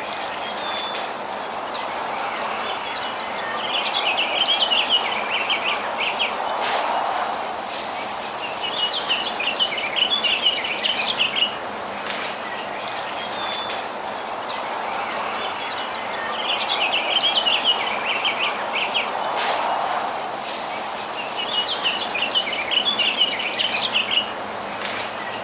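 Small songbirds chirping in bursts of rapid twittering, one burst about every six seconds, over a steady background rush of outdoor ambience.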